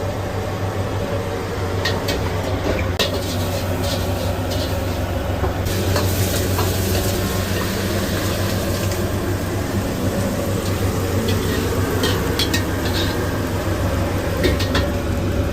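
Stir-frying in a wok: food sizzling, with a metal spatula scraping and clinking against the wok. The sizzle grows louder about six seconds in, over a steady low hum from the kitchen extractor fan.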